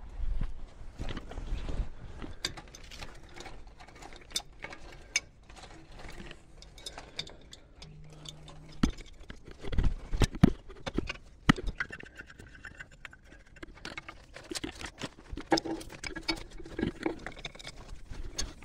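A spanner working on the speedometer-cable gearbox fitting on a Unimog's transfer case: irregular metallic clicks, clinks and knocks as the tool is fitted and turned, with a cluster of louder knocks about ten seconds in.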